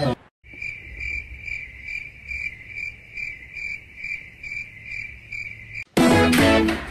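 Cricket chirping: one steady high chirp repeated a little over twice a second, starting and stopping abruptly as a dropped-in 'crickets' sound effect for an awkward silence. Near the end it cuts off into louder voices and music.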